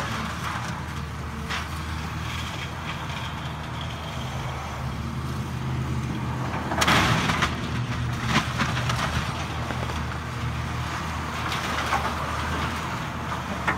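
Caterpillar hydraulic excavator's diesel engine running steadily as it breaks up a demolished house, with debris crashing and cracking, loudest about seven seconds in and again a second or so later. A car drives past close by near the end.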